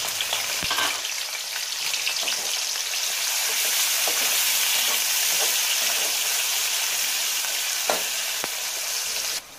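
Sliced onions sizzling as they fry in hot ghee in a large aluminium pot, with a steel slotted spatula scraping and clicking against the pot as they are stirred. The sizzle cuts off suddenly near the end.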